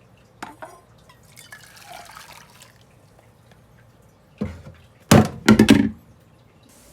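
Water or liquid splashing and dripping at a kitchen sink or pot, with a few louder splashes about four and a half to six seconds in.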